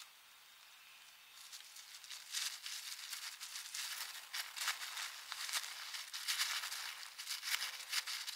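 Nylon camping gear and bags rustling and crinkling as they are handled and stuffed for packing. The sound comes as quick scratchy strokes that start about a second and a half in and grow louder soon after.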